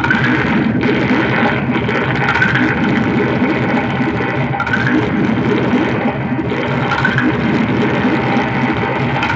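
Looped audio feedback noise run through digital reverb: a dense, steady drone with a short rising whine that repeats about every two seconds.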